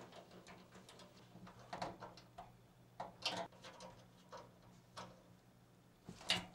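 Irregular small metallic clicks and taps from a screwdriver and pliers working screws and parts on a steel PC case, with the loudest knocks about three seconds in and near the end.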